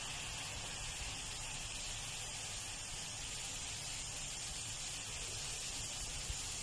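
Chopped chillies, garlic, shallots and dried chillies sizzling steadily in hot oil in a pan, fried until fragrant as the first step of a stir-fry paste.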